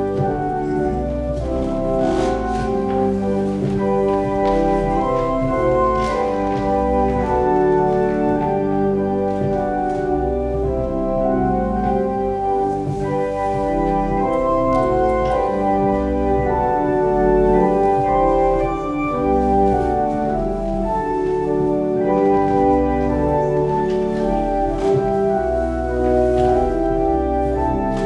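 Organ playing slow, held chords over low bass notes.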